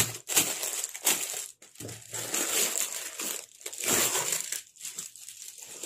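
Clear plastic packaging film crinkling in irregular bursts as it is handled and pulled open from around a leather document folder.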